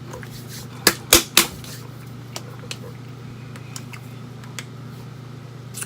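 Three sharp clicks or knocks in quick succession about a second in, then a few faint scattered ticks, over a steady low hum.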